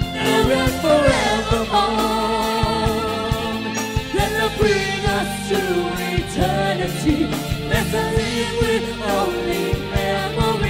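Live band, with electric guitar, drums and keyboard, playing a Chinese pop medley while male and female vocalists sing over a steady drum beat.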